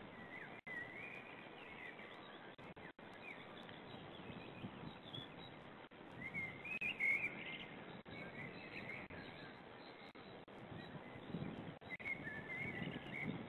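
Faint high bird chirps and short warbling trills in several bursts, the loudest about seven seconds in, over a steady background hiss.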